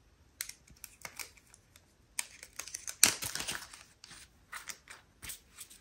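Small plastic diamond-painting drills clicking and rattling as they are handled and sorted, a run of quick light clicks with a louder cluster about three seconds in.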